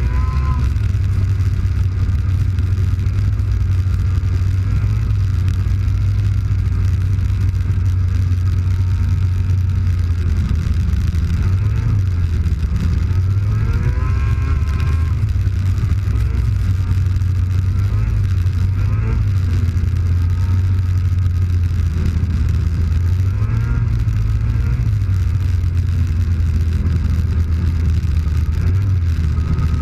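Snowmobile engine running as the sled travels along a trail, a steady drone whose pitch briefly rises and falls about halfway through.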